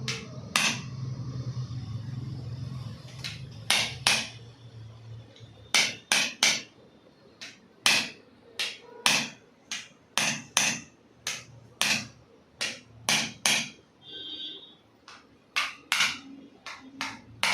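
About two dozen sharp knocks during a chiropractic treatment of the lower spine. They come irregularly, one or two a second, often in quick pairs, with a short pause near the end.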